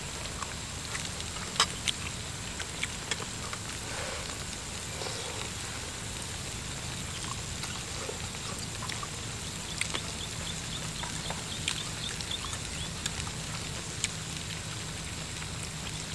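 Moo kratha pan over a charcoal stove sizzling and bubbling steadily, with scattered sharp clicks of chopsticks against the metal pan and bowls as the diners pick up food.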